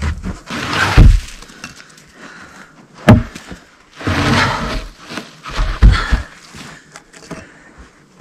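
Firewood logs loaded onto an icy truck bed: three heavy knocks, about a second in, around three seconds and near six seconds, with scraping and crunching between them.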